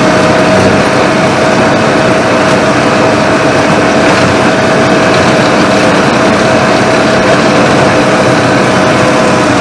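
Farm tractor engine running steadily under load, driving a hydraulic side-mounted flail mower cutting roadside grass, with a constant whine over the engine.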